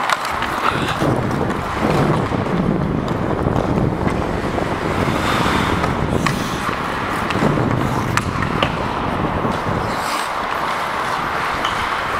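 Ice skate blades gliding and scraping on a hockey rink, with air rushing over a helmet-mounted microphone as the wearer skates. A few sharp knocks are heard along the way.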